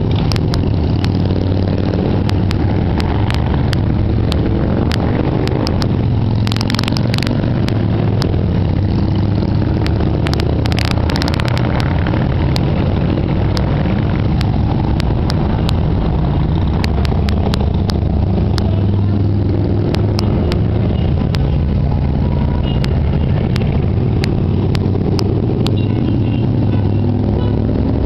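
A steady stream of large cruiser and touring motorcycles riding past one after another, their engines producing a continuous low, loud rumble.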